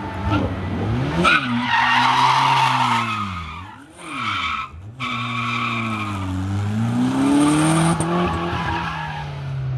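Toyota MR2 drifting: the engine revs rise and fall while the tyres squeal through two long slides, with a brief lull about four seconds in.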